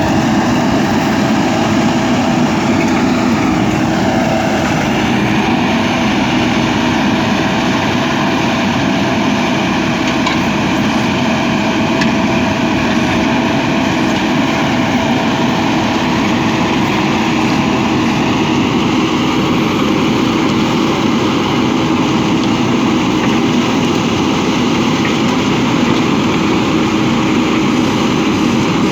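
JCB backhoe loader's diesel engine running steadily, with a brief dip in pitch about four seconds in.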